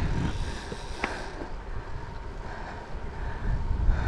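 Wind rumbling and buffeting on the microphone while cycling, with a single short click about a second in.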